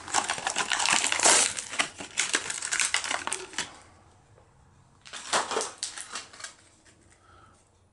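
Plastic blister bubble and cardboard card back of a carded action figure being torn open by hand: dense crackling and crinkling for about three and a half seconds, a pause, then a second, shorter burst of tearing.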